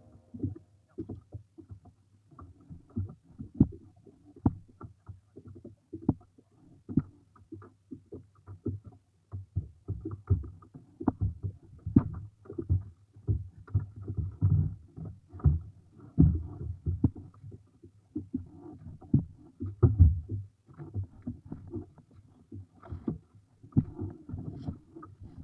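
Wet prawn net being hauled hand over hand into a small fibreglass boat: irregular knocks, patters and slaps of net and water against the hull and deck.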